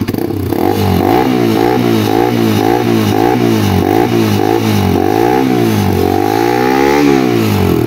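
Motorbike with a loud aftermarket exhaust being revved in quick repeated throttle blips, about two a second, with one longer rev near the end.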